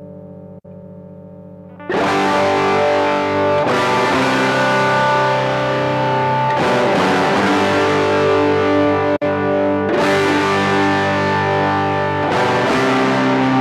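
Electric guitar through a distortion effect: a quieter held note rings for the first two seconds, then loud distorted chords are struck and left to sustain, a new chord about every two to three seconds.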